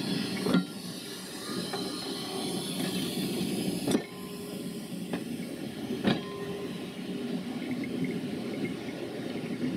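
Railway passenger coaches rolling past behind a steam locomotive: a steady rumble of wheels on rail with a few sharp knocks as the wheels cross rail joints, the loudest about four seconds in, and steam hissing at first.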